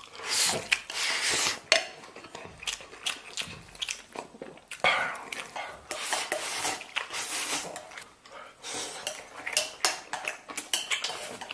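Chopsticks clicking and scraping against a plate as rice and mutton are shovelled into the mouth, with chewing between mouthfuls.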